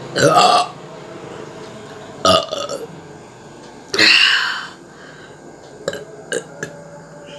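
A woman burping loudly three times, the burps brought up by gulping a fizzy cold drink; a burp that had been stuck finally comes up. The third burp is the longest, and a few small clicks follow it.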